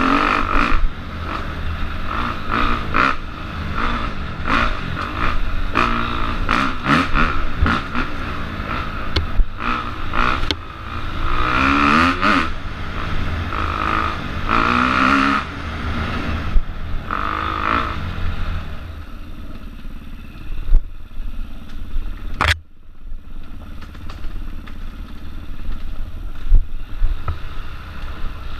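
Enduro motorcycle ridden hard over a rough dirt forest trail, heard from an onboard camera: the engine revs up and down repeatedly, with rattles and knocks from the bike over the bumps. About 19 s in the engine settles to a quieter note, and there is one sharp crack about 22 s in.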